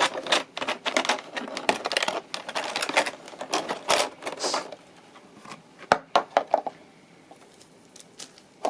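Packaging rustling and clicking as a boxed diecast model airliner is worked out of its tight-fitting box: a dense run of quick clicks and scrapes for about four and a half seconds, then a few separate clicks around six seconds in.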